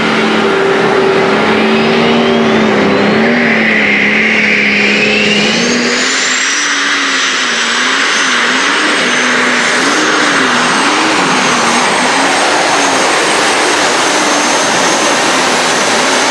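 Diesel super stock pulling tractor at full power under load, its turbocharger spool whine rising steeply over the first six seconds and then holding high. Beneath it the engine's note wavers up and down as the tractor drags the sled.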